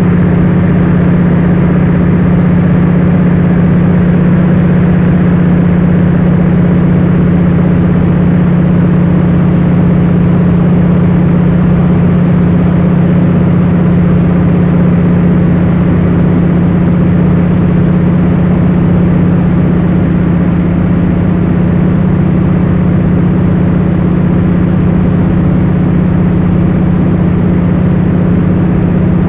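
Float plane's engine and propeller running steadily in flight, heard from inside the cabin as a loud, even drone with a strong low hum.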